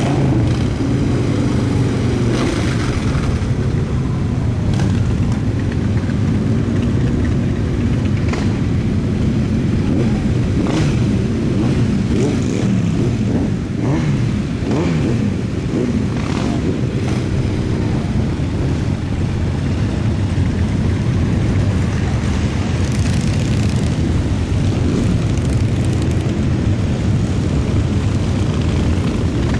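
A procession of cruiser-style motorcycles riding past at low speed, a continuous engine rumble whose pitch rises and falls as bikes come and go, with several brief sharp cracks through the first two-thirds.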